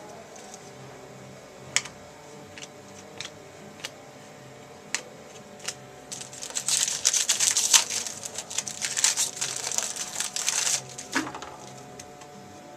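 Scattered sharp clicks and taps of trading cards being handled, then about six seconds in, several seconds of crinkling and tearing as a card pack's wrapper is opened and handled, with a few more clicks near the end.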